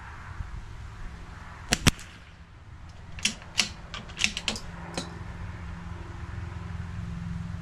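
Sharp clicks from the rifle and its scope being handled at the shooting bench. Two come close together, then a run of about seven irregular clicks follows as a hand works the scope.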